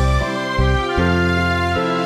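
Background music: a gentle tune of held notes over a deep bass line, the chords changing about every half second to a second.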